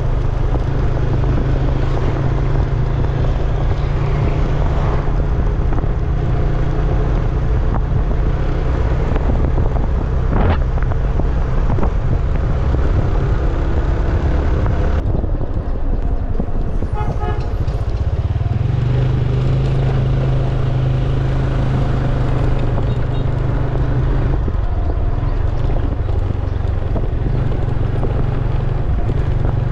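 Motor scooter running steadily while ridden, with a steady low drone and road noise. A horn toots briefly about halfway through.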